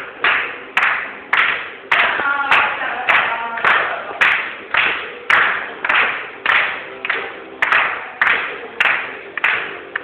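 Loud, distorted dance beat: an even run of noisy hits, just under two a second, with faint music and a voice underneath.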